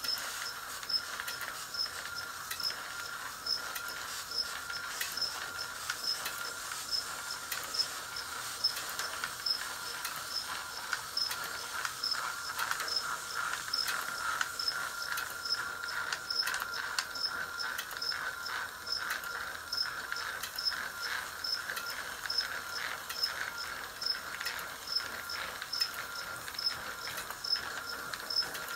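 Train destination roll sign from a 103-series electric train, its motor winding the film between destinations with a steady whirr and rattle, and a light tick repeating about twice a second.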